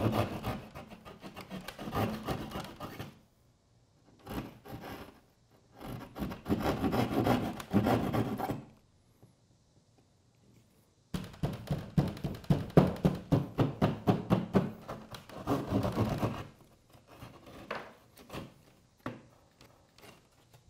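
A drywall jab saw's blade scraping back and forth along the edge of a hole cut in drywall, shaving it wider so the outlet box will friction-fit. The scraping comes in four runs of quick strokes with short pauses between them, then gives way to lighter scrapes and taps near the end.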